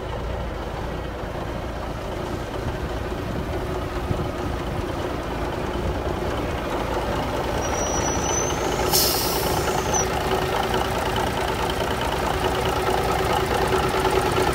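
Diesel engine of a 1989 Freightliner FLD120 dump truck idling steadily, growing louder toward the end. A short hiss sounds about nine seconds in.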